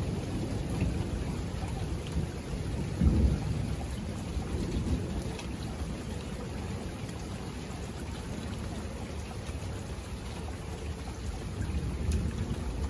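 Thunderstorm: thunder rumbling low under steady rain, with a louder roll about three seconds in, easing off through the middle and building again near the end.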